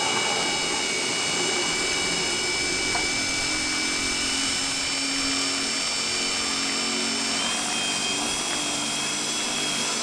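Small cordless impact driver spinning a converted car water pump's impeller, running steadily at high speed with a high-pitched whine as it pumps water up a six-foot pipe. The whine steps up slightly in pitch about three-quarters of the way through.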